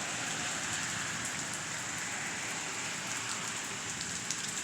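Steady rain falling, with a few sharper drops ticking close by near the end.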